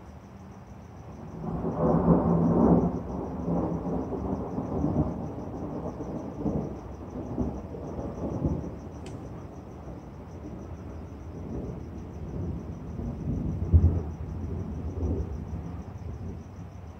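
Thunder from an electrical storm. The rumble swells about a second in, is loudest over the next couple of seconds, then keeps rolling, fading and returning, with a sharper loud clap late on.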